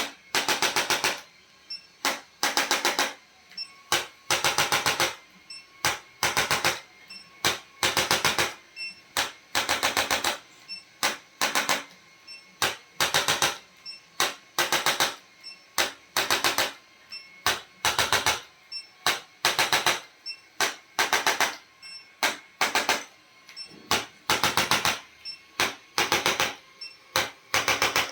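Handheld percussion device firing rapid mechanical taps in short bursts of about half a second to a second, one burst every second or so.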